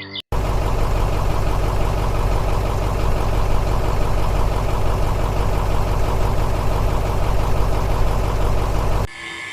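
Tractor engine running steadily at idle with a fast, even knock. It cuts in abruptly just after the start and cuts off abruptly near the end.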